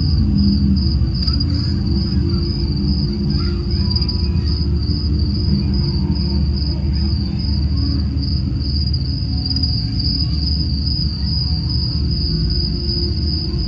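Crickets trilling steadily and high-pitched, over a low rumbling drone.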